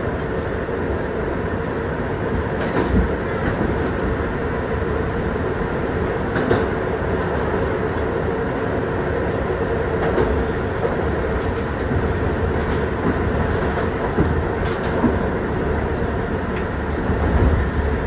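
Kawasaki R62 subway train running through a tunnel, heard from inside the front car: a steady rumble of wheels on rail with a constant hum and scattered clicks.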